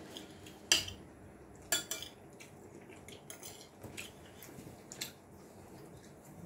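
Metal spoon and fork clinking against ceramic plates while eating: a handful of separate sharp clinks, the loudest about a second in.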